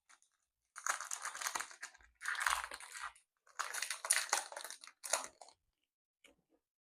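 Foil Pokémon booster pack wrapper crinkling as it is torn open by hand, in four crackly bursts.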